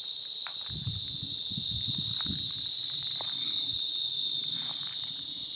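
Insects called jhingur (crickets) singing a high, steady, non-stop note. Faint low rustles and knocks come about a second in.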